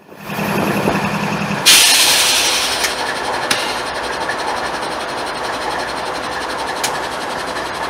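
Norfolk Southern diesel freight locomotive passing slowly, engine running and wheels rumbling on the rails. A loud burst of air hiss starts suddenly about two seconds in and lasts about a second, and there are two sharp clanks later on.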